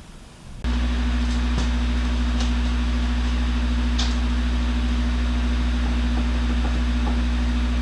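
A loud, steady machine hum with a deep electrical buzz under a hiss, starting abruptly about half a second in and cutting off suddenly at the end, with a few faint clicks along the way.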